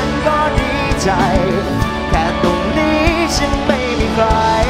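Live pop-rock band playing: drum kit, electric guitars, bass and keyboard, with a male lead vocal that wavers in pitch over a steady beat.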